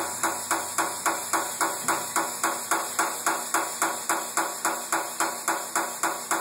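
Air from a Hunter TC3700 tire changer's inflation hose pulsing into a stretched tire on an 18x9 wheel, about five sharp hissing spurts a second, as the tire is inflated after its beads are seated.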